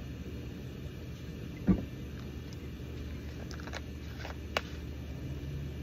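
Plastic juice bottles handled at a drink dispenser: one thump about a second and a half in, then a few light clicks, over a steady low rumble.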